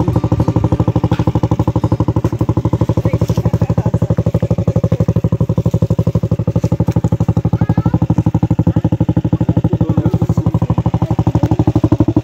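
Small single-cylinder step-through motorbike engine idling, an even, rapid putter that holds steady throughout.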